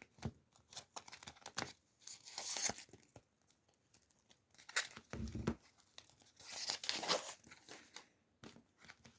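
Plastic and paper packaging being torn open and crinkled by hand, in short irregular bursts, the louder ones about two, five and seven seconds in.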